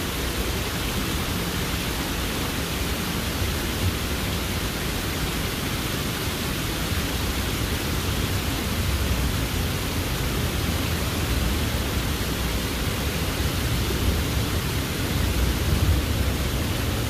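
Water cascading down the stone face of a wall fountain, a steady, even rush of falling water.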